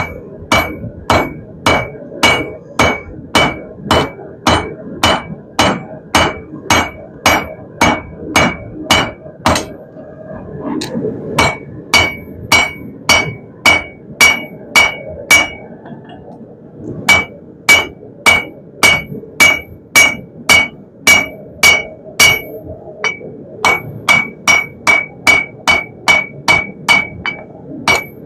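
Hand hammer striking a red-hot steel bar on an anvil, about two blows a second, each blow with a bright ring from the anvil. The hammering breaks off briefly twice, about ten seconds in and again around sixteen seconds.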